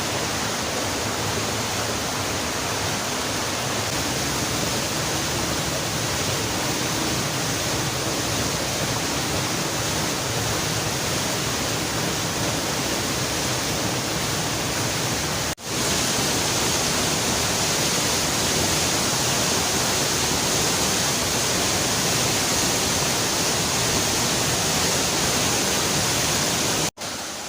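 Waterfall pouring in heavy flow into its pool: a steady rushing of water that breaks off for a moment about halfway through and again near the end.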